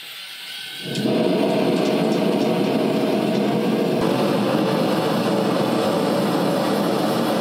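Gas forge burner running with a steady rushing noise, which comes in about a second in after a brief quieter moment with a faint hiss.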